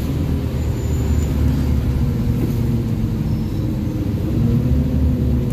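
City bus running in traffic, heard from inside the passenger cabin: a steady low engine drone and road rumble.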